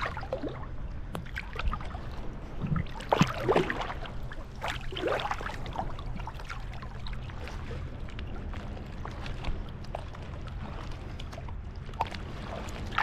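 Calm sea water lapping and gurgling against moored boat hulls at water level, with a few short splashes a few seconds in, over a steady low hum.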